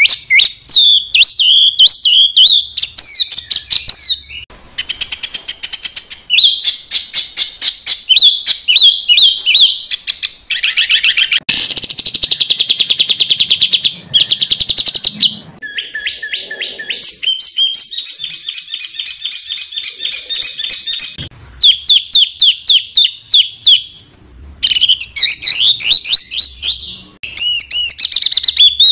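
Songbirds singing dense, rapid-fire phrases of the kind bird-keepers call tembakan rapat: fast runs of sharp repeated notes and trills. The pattern changes abruptly every few seconds, as if separate recordings have been spliced together.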